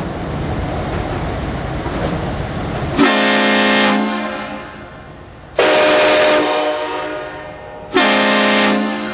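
A truck-mounted bank of sixteen train horns, including two Nathan K5s, sounding three blasts about two and a half seconds apart, each a dense chord of many tones that holds for about a second and then fades. The blasts come after about three seconds of steady rushing noise.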